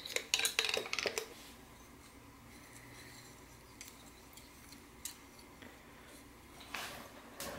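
Quick metallic clicks and clinks from an oil can and engine parts being handled over an engine block, packed into the first second or so. Then faint handling noise with a few light ticks and a short rustle near the end.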